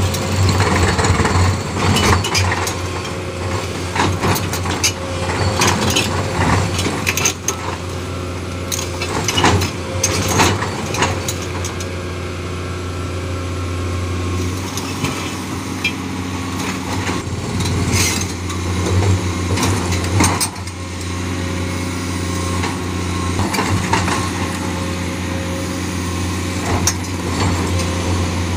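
Komatsu crawler excavator running steadily under load while its hydraulic breaker hammers rock, with sharp knocks and cracks of rock breaking at irregular moments, most often in the first half.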